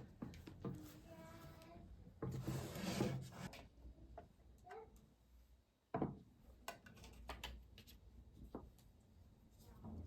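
Quiet handling sounds from household objects: a brief squeak, a stretch of rubbing or scraping, then scattered knocks and clicks, the loudest about six seconds in.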